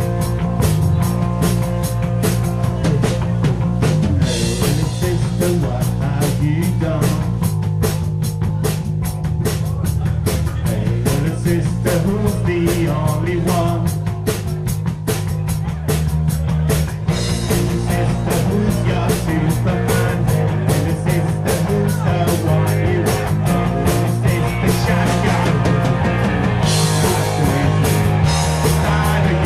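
Live rock band playing an upbeat song: a quick, steady drum beat with bass and electric guitar.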